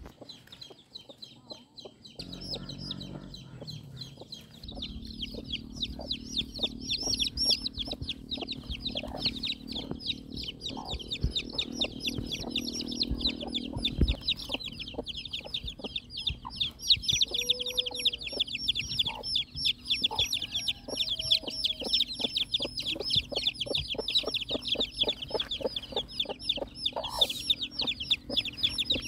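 A handful of baby chicks in a woven bamboo basket peeping nonstop: a rapid stream of high, thin cheeps that grows busier a few seconds in. A single low thump comes about halfway.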